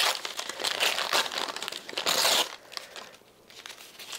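Paper wrapping crinkling and crumpling as hands unwrap it from a potted plant. It is loudest about two seconds in and dies down after about two and a half seconds.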